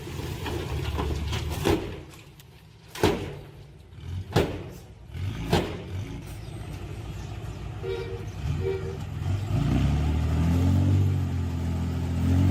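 Diesel engine of heavy earthmoving machinery running, with several sharp knocks and two short beeps in the middle, then the engine building up again under throttle.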